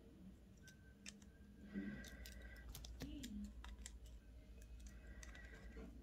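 Faint, scattered small clicks and ticks of jewellery pliers and wire as the tips tuck a wire end around a bead.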